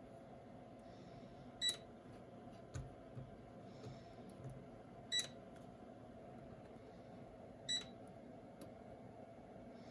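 Spot welder firing three times on brass LGB track rail: three short, sharp beeping clicks a few seconds apart, with a few fainter clicks between them, over a low steady hum.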